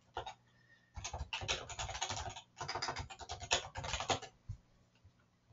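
Fast typing on a computer keyboard: two quick runs of key clicks, each about a second and a half long, with a short break between them and a few stray clicks before and after.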